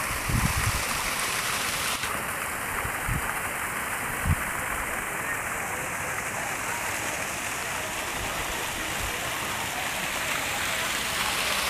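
Steady rushing hiss of water still running at a mostly frozen waterfall, with a few brief low thumps about half a second, three and four seconds in.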